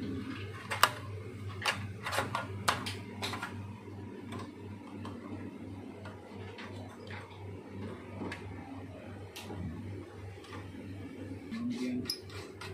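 Small clicks and knocks of plastic and metal projector parts being handled and fitted back into the casing: a quick run of sharp clicks in the first few seconds, then quieter, sparser handling noises. A steady low hum runs underneath.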